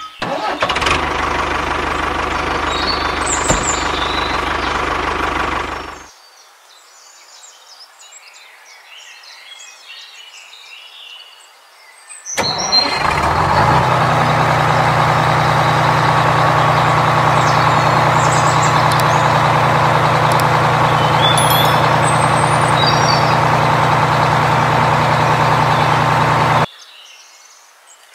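A motor runs steadily for about six seconds and cuts off, leaving faint bird chirps. About halfway through it starts again abruptly, runs steadily for about fourteen seconds and cuts off suddenly, with bird chirps after.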